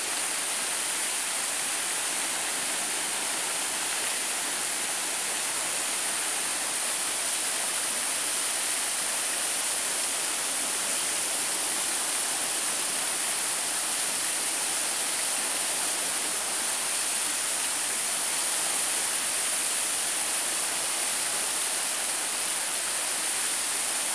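Water of a spring-fed stream rushing over shallow rapids in a channel, a steady, unbroken rush.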